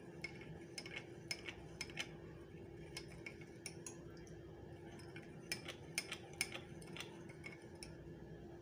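A spoon stirring milk in a drinking glass, clinking lightly and irregularly against the glass a few times a second, over a faint steady hum.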